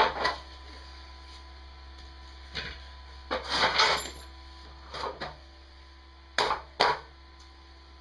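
Heavy metal parts clanking and knocking together in a string of sharp hits with short ringing: a single hit at the start, a flurry about three and a half seconds in, and two close hits near the end, over a steady low hum.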